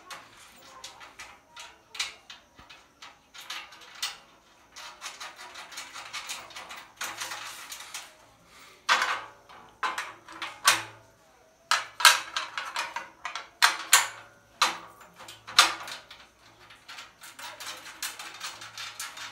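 Irregular metal clinks, knocks and scrapes as the foot pedal plate is bolted onto the steel crossbar of an industrial sewing machine stand, with bolts and nuts being fitted by hand.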